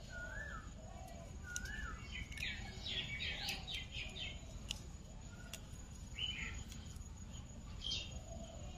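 Songbirds calling outdoors. A clear whistled note that rises and then drops is repeated three times in the first two seconds, followed by a quick run of high chirps and a few scattered chirps later, over a steady low background rumble.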